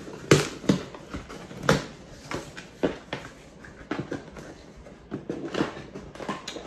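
A mailed package being opened by hand: irregular crackling, rustling and scraping of packaging.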